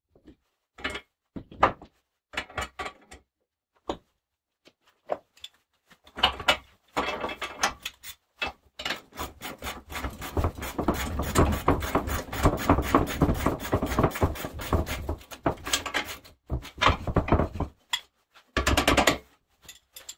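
Socket ratchet clicking in a long fast run as a nut is turned down on a bolt of a steel ATV plow mount, then in two shorter runs near the end. Scattered single clinks of metal parts come before the first run.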